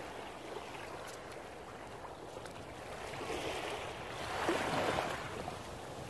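Small sea waves breaking and washing up the beach, with one wave swelling louder and then falling away near the end.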